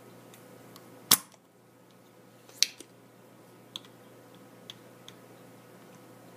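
Spring-loaded desoldering pump snapping: its plunger is released to suck melted solder off a joint. Two sharp clicks about a second and a half apart, the first the loudest, then a few faint ticks.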